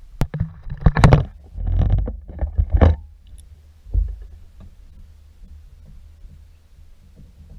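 Knocks and thumps on a fiberglass boat as a small shark is swung aboard in a landing net and handled, busiest over the first three seconds, with one more thump about four seconds in.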